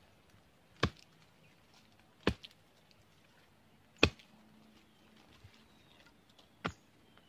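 A machete chopping into tree roots with four sharp, separate strikes, about one and a half to two and a half seconds apart. The last strike is weaker.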